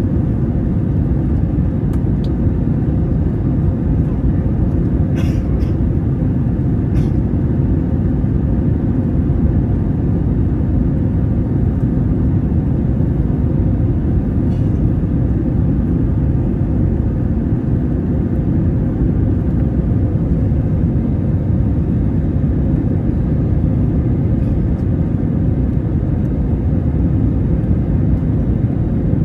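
Steady, loud low rumble of an Airbus A320neo's engines and airflow heard inside the cabin, with a few faint clicks.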